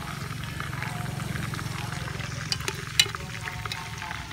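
Dark Coca-Cola sauce steadily sizzling and bubbling around a whole chicken in a metal pot, with a few sharp clicks, the loudest about three seconds in.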